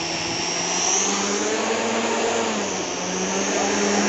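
Electric motors and propellers of a large RC scale biplane bomber running, five GWS 400 motors together. The whine rises in pitch about a second in, dips near three seconds, then rises again as the throttle changes.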